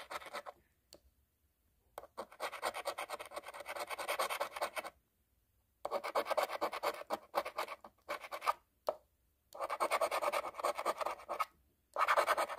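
The coating is being scratched off a scratch-off lottery ticket in quick rasping strokes. The scratching comes in four runs of a couple of seconds each, with short pauses between.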